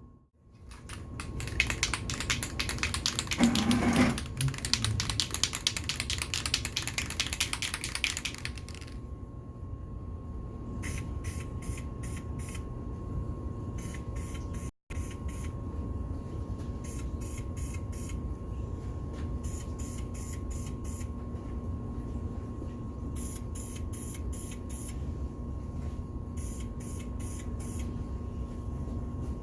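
Aerosol spray-paint can being shaken, its mixing ball rattling in fast clicks: a long stretch of steady shaking for about the first eight seconds, then repeated short bouts of shaking.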